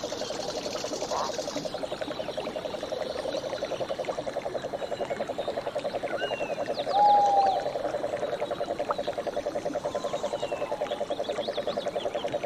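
A frog trilling steadily in a fast pulsing rattle, with scattered high bird chirps over it and one short, louder whistled note a little past halfway.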